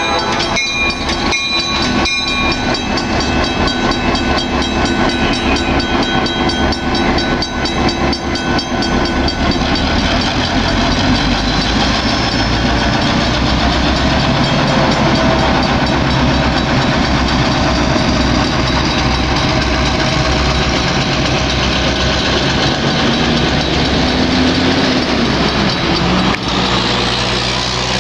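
Two EMD GP16 diesel locomotives passing slowly, their engines running steadily with the wheels rolling on the rails; the sound changes abruptly near the end.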